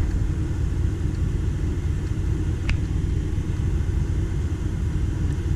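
Van moving slowly, its engine and road noise making a steady low rumble inside the cab. A single short click comes a little under three seconds in.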